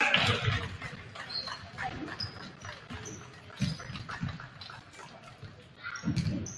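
Basketball dribbled on a hardwood gym floor, a run of dull bounces with short high sneaker squeaks between them; the scoreboard horn cuts off at the very start.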